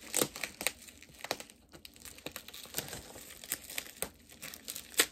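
Plastic packaging crinkling as it is handled and pulled open by hand, in a quick, irregular run of crackles.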